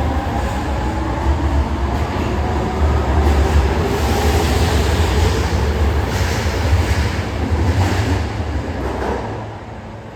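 Osaka Metro 22 series subway train pulling out of the station: a low rumble as the cars run past, with wheels knocking over rail joints several times, fading away near the end.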